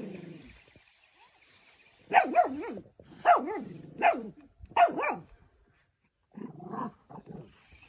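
A dog barking in a run of four loud, pitched barks, followed by a few softer ones.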